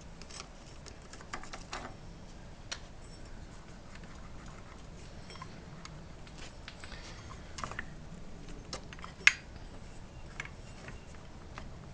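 Scattered light clicks and clinks of metal parts being handled and fitted on a scooter's CVT drive, with one sharper click about nine seconds in.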